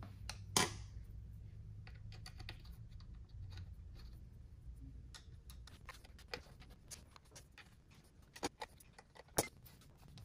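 Scattered light clicks and taps of a screwdriver and small slotted screws being handled and driven into the aluminium cam cover of a 1928 Harley-Davidson JH engine, over a low steady hum. One sharp click comes about half a second in and a few more come near the end.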